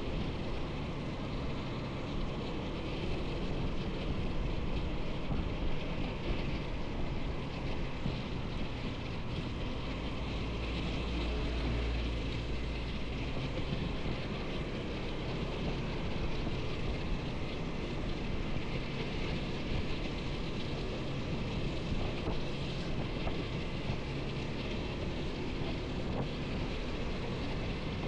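Motorcycle on the move: a steady engine hum under wind and road noise on the rider's microphone, with the low end swelling for a few seconds around the middle.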